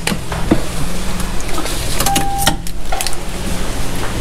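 Toyota Supra driver's door being swung open, with latch and handling clicks, over a steady low hum. About two seconds in there is a short single beep.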